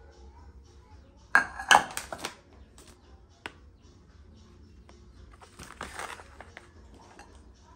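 Cookware clattering on a stone counter: a quick run of sharp metallic knocks and rattles about a second and a half in, and a single click a little later. Near the end comes a softer crinkle of a plastic spice packet as dried herbs are shaken out over a bowl.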